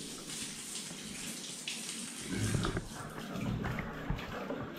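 Water running and splashing steadily as a wet golden retriever puppy is washed on a tiled bathroom floor, with some duller handling noise about halfway through.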